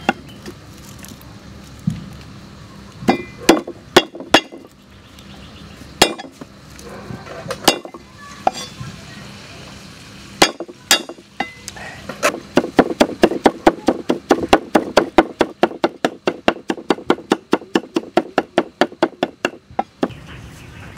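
Heavy cleaver chopping on a thick round wooden chopping block: a few separate knocks as garlic cloves are cut, then fast, even mincing at about five strokes a second that stops about a second before the end.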